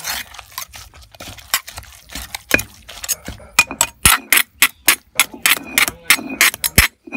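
Stainless steel spoon stirring and scraping chilli paste in a granite mortar: quick, irregular clicks and knocks as the spoon strikes the stone and the pestle, some with a short metallic ring, between wet scraping sounds.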